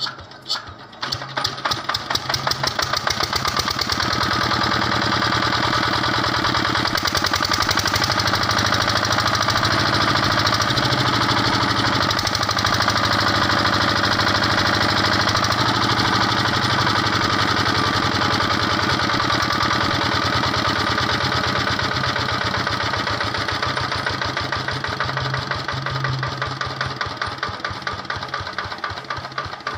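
Single-cylinder diesel engine of a 7.5 kVA generator, silencer fitted, catching and firing into life. Its strokes are distinct at first and quicken over the first few seconds into a steady run. Near the end it slows, the firing strokes coming apart again as it runs down.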